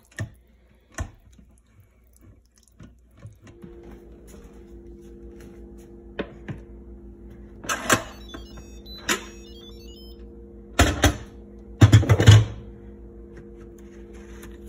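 Cookware being handled: a series of sharp knocks and clunks, heaviest about twelve seconds in. Under them a steady electrical appliance hum comes on a few seconds in and keeps running.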